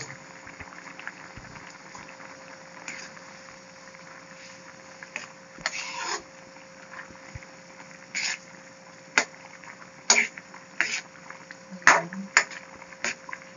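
A pot of beef offal soup boiling and bubbling. From about halfway, a ladle stirs the broth and knocks sharply against the pot about eight times.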